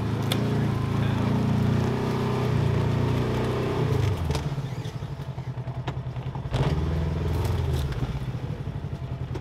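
Motor-vehicle engine running at low revs. It eases off to a quieter, evenly pulsing idle about four seconds in and picks up again a couple of seconds later, with a few light clicks.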